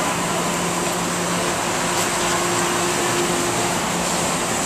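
Steady hum and hiss of an MBTA Green Line trolley car's onboard equipment, with a faint low drone under an even rush.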